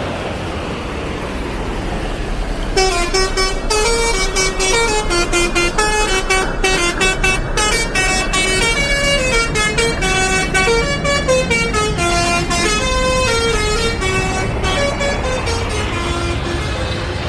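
Tour bus engine and road rumble, then, about three seconds in, a telolet multi-tone air horn starts playing a quick tune of stepping notes and keeps playing over the engine.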